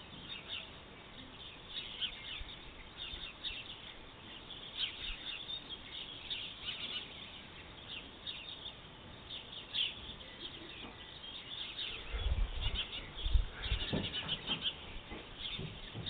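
Small birds chirping, a steady scatter of short high calls. A run of low rumbling thumps comes about three-quarters of the way through.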